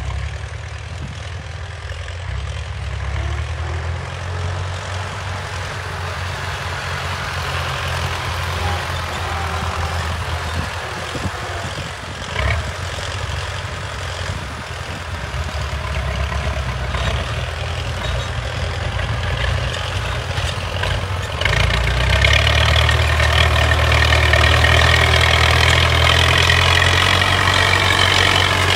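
Old tractor's diesel engine running steadily under load while pulling a disc harrow through the soil. It grows louder about three-quarters of the way through as the tractor comes close.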